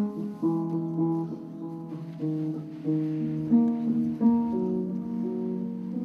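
Slow instrumental music: a few held notes at a time, moving to new notes every half second to a second.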